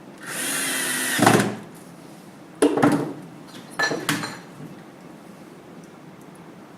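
Power drill driving screws to fix the shutter's aluminium rail into the cabinet: a steady motor whine lasting about a second, then two shorter bursts.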